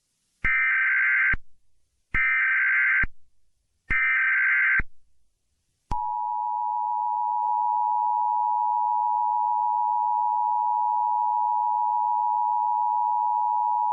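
Emergency Alert System SAME header: three short bursts of buzzy digital data tone, about a second each. About six seconds in comes the long, steady two-tone EAS attention signal (853 and 960 Hz).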